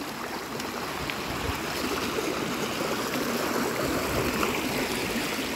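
Shallow rocky river water rushing and foaming over stones close by, a steady wash of flowing water.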